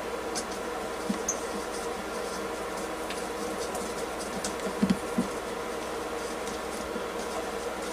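Small clicks, scrapes and taps of metal heater parts and tools being handled during disassembly, with a few louder knocks about five seconds in, over a steady background hum.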